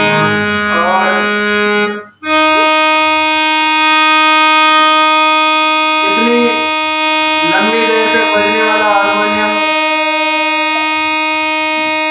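Two-line harmonium with Palitana reeds: a few notes of a tune, a brief break about two seconds in, then one note held steady, showing how long the harmonium keeps sounding.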